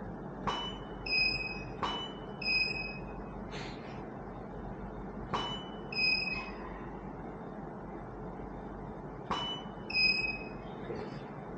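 Four camera shutter clicks, each followed within about a second by short high electronic beeps at two pitches: the ready signal of studio flash units recycling after firing.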